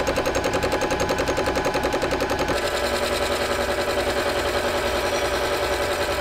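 Benchtop metal lathe running with the workpiece spinning, its drive giving a fast, even beat about eight or nine times a second. About two and a half seconds in the sound changes to a steadier whine that still pulses.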